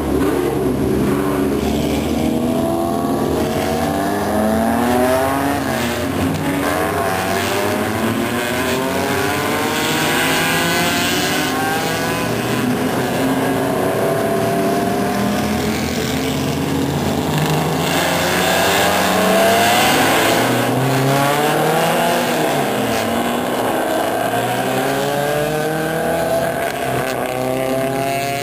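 Several race car engines running and revving, overlapping, their pitch rising and falling over and over as cars drive past.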